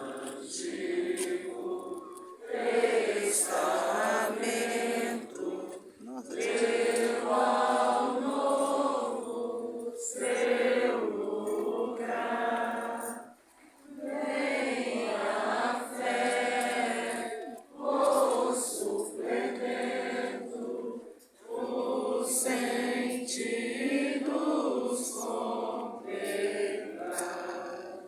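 Voices singing a chant-like sacred hymn together, in phrases of a few seconds each with short breaks between them.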